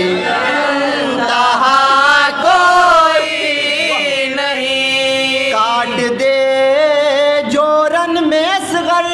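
Men's voices chanting soz, an unaccompanied Shia lament for Karbala, in long held and wavering notes.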